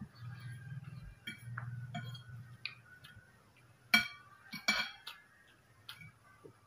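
Metal forks clinking and scraping against a plate while twirling noodles, with a few light clinks and two sharper ones about four and nearly five seconds in.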